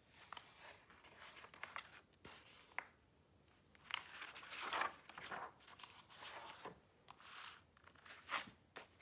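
Pages of a picture book turned by hand and the book closed and handled on a wooden table: several paper swishes and rustles, loudest about halfway, with a sharp tap near the end.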